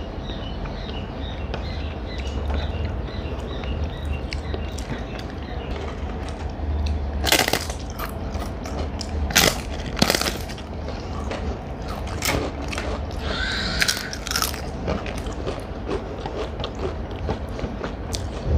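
A person eating at close range: several sharp crunching bites in the second half, between quieter chewing.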